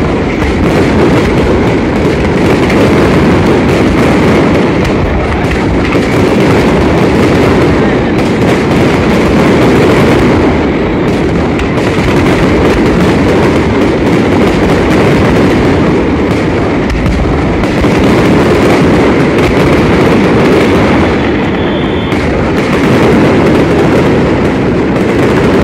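Fireworks display: a dense, unbroken barrage of bangs and crackling bursts from aerial shells and rising comets, very loud.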